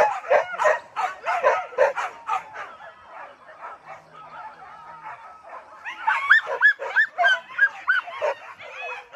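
A pack of boar-hunting dogs yelping and baying, giving tongue on the chase. Rapid, overlapping high yelps ease off around the middle and pick up again near the end with a run of rising-and-falling yelps, about three a second.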